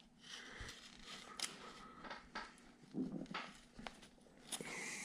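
A carving V-tool slicing into wood: a few short, faint scraping cuts with small clicks between them.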